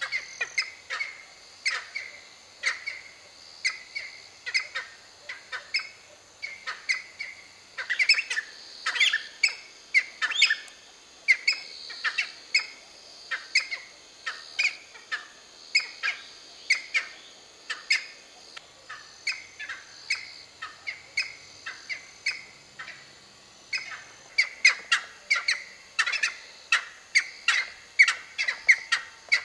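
Cheer pheasants calling: dozens of short, sharp calls in quick, irregular succession, many falling in pitch, with a steady high hiss underneath.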